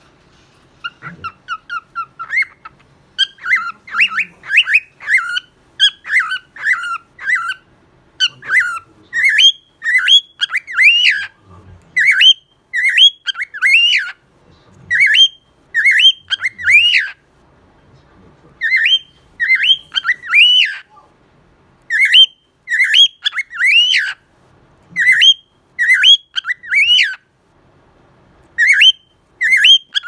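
Grey cockatiel singing close up: a quick run of short whistled chirps, then the same phrase of rising and falling whistled notes repeated over and over, in groups of three or four with short pauses between.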